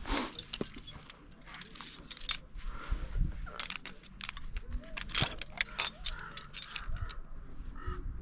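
Metal climbing hardware, carabiners and quickdraws, clinking and clicking in a string of short sharp jangles while a climber rigs into the top anchor of the route.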